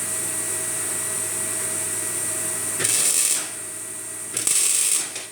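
A workshop machine running steadily with a faint hum, and two short hissing bursts about three and four and a half seconds in.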